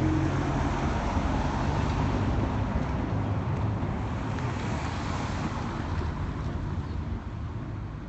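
Wind rumbling on a phone's microphone outdoors, a steady low rush with hiss above it that eases a little near the end.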